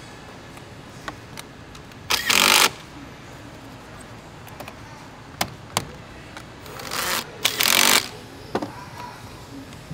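Handling noise while a car battery and its felt insulating cover are refitted: two loud bursts of noise, about half a second and about a second long, with scattered clicks and knocks between them.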